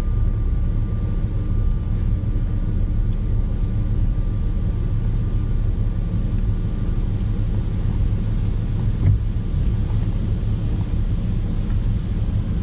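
Truck driving slowly, heard from inside the cab: a steady low engine and road rumble. A faint steady whine fades out about halfway through.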